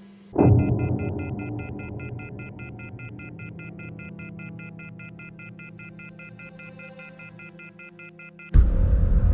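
Telephone off-hook warning tone, a harsh beeping of several high tones pulsing about five times a second, the signal of a dead line with the receiver left off the hook. It opens with a deep low boom that fades slowly, and near the end loud, dark film music cuts in over it.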